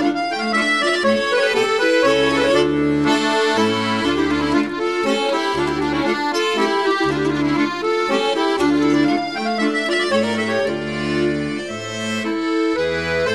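Background music led by an accordion, with chords over a bass line that moves in steps from note to note.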